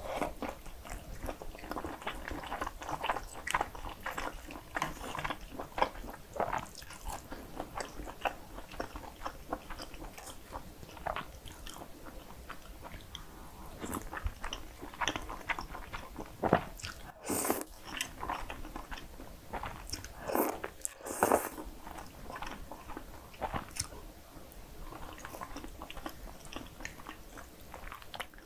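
Close-miked eating sounds: biting into and chewing Polish sausage, then creamy pasta noodles being slurped and chewed, with many small wet mouth clicks. A few louder, sharper mouth sounds come about two-thirds of the way through.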